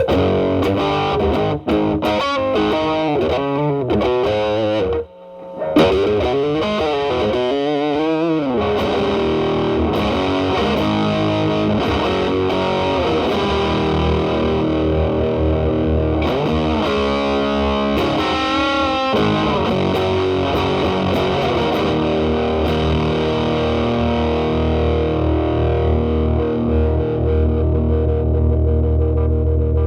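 Telecaster electric guitar through an E.W.S. Brute Drive (BD-1) distortion pedal at maximum gain into a Marshall Valvestate amp's drive channel, with the guitar's volume rolled back to clean up the tone. Bluesy lead lines with string bends and vibrato, then a long held chord that rings out and sustains.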